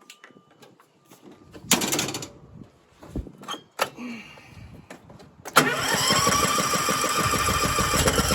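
Troy-Bilt Super Bronco 42 riding mower's engine: a few clicks and a short burst of noise, then about five and a half seconds in the engine catches and settles into a steady run. It starts now that its fouled spark plug has been brushed clean.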